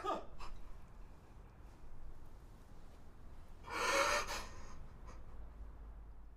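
A single sharp gasping breath about four seconds in, over a steady low rumble.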